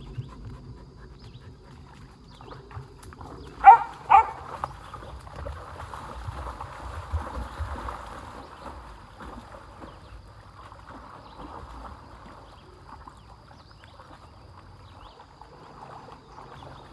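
Two short, loud dog barks about four seconds in, then a long stretch of steady splashing as a pony wades through floodwater.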